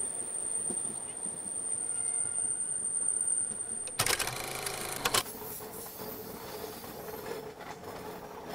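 Passenger train of LHB coaches running, with steady wheel-on-rail and wind noise from an open coach door. A short loud burst about four seconds in is followed by a steadier running hum.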